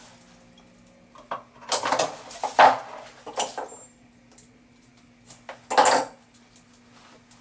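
Electrical cable and a hand stripping tool being handled as a cable end is stripped: scattered clicks, scrapes and rustles, loudest about two seconds and again about six seconds in, over a faint steady hum.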